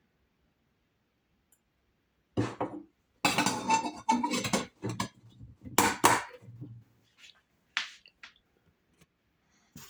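An electric kettle and its parts being handled, with knocks, rattles and clinks of hard objects for about four seconds, followed by a few light clicks.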